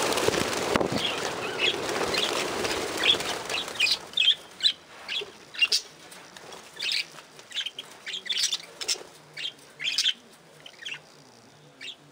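A flock of budgerigars taking off together in a loud flurry of wingbeats for the first four seconds or so, then short, high chirps from the birds, one after another at uneven spacing.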